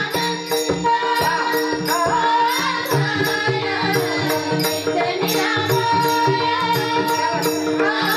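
Marathi devotional bhajan: a woman singing over a steady held drone, with drum strokes and an even, repeating percussion beat.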